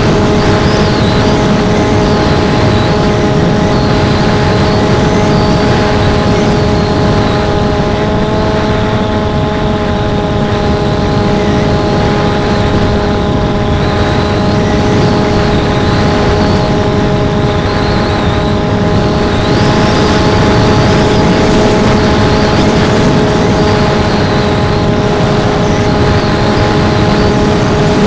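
Electric motor and propeller of an FPV HammerHead flying wing whining at a steady pitch under constant throttle, over heavy wind rush on the onboard camera.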